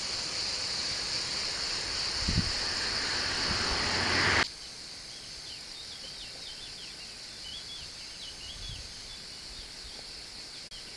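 Steady high insect chorus, with a rushing noise that swells and cuts off suddenly about four and a half seconds in. After that a quieter outdoor ambience follows, with small birds chirping over a fainter insect buzz.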